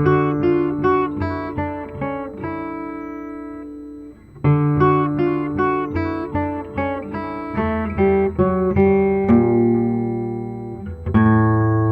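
Guitar sound from a phone music app, playing picked chord patterns, a few notes a second over held bass notes. A new phrase starts twice, about four seconds in and near the end.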